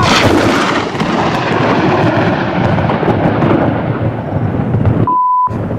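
Thunder from a close cloud-to-ground lightning strike: a loud, continuous rumble and crackle that holds for about five seconds. It is broken about five seconds in by a short, steady, single-pitched beep.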